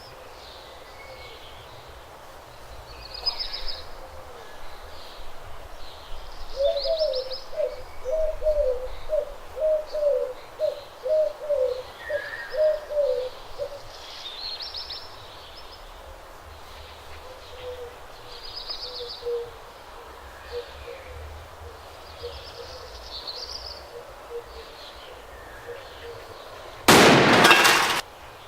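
Birds calling: a run of about ten repeated low hooting notes, a fainter run of hoots a few seconds later, and scattered short high chirps. Near the end a loud burst of noise covers everything for about a second and a half.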